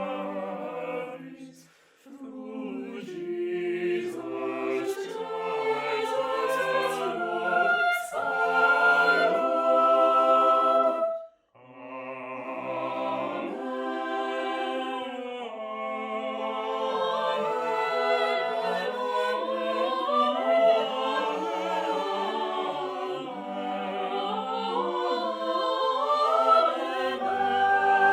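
Choir singing in long held notes, with short pauses between phrases about two seconds in and again about eleven seconds in.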